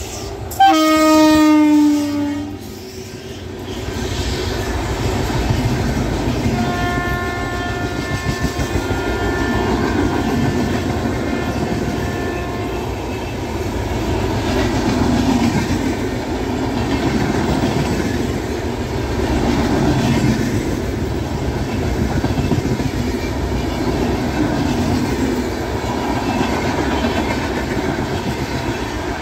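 A WAP-7 electric locomotive sounds a loud two-second horn blast as it draws level, the pitch dipping slightly. Its LHB coaches then roll past with a steady rumble and rhythmic wheel clatter. A fainter, higher horn note sounds for several seconds about a quarter of the way through.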